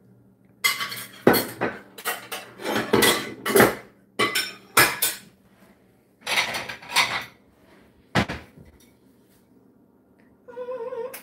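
Dishes and cutlery clattering: a string of irregular sharp clinks and knocks as plates and utensils are handled, which stops about eight seconds in.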